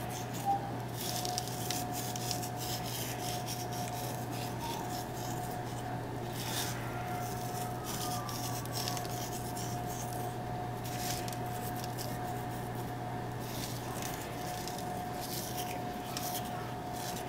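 Faint, irregular rustle of dried parsley flakes rubbed between fingers and sprinkled by hand, over a steady low hum and a faint steady high tone in the room.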